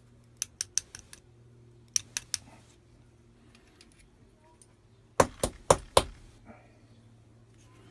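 Small metal lock parts being handled: a few light clicks, then three more, then four louder knocks about five seconds in, as a pin stuck in its chamber in the disassembled lock is worked at.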